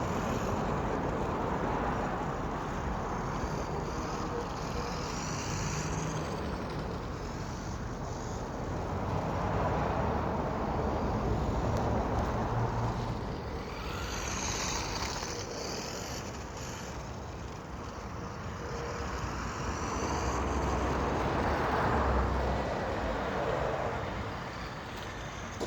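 Road traffic: cars passing one after another, their tyre and engine noise swelling and fading several times.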